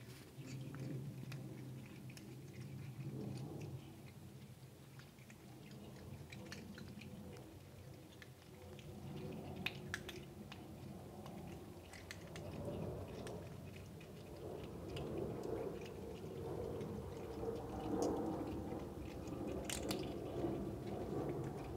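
Several kittens crunching dry cat kibble: a scatter of small, crisp crunches and clicks as they chew, over a low background hum that grows louder in the second half.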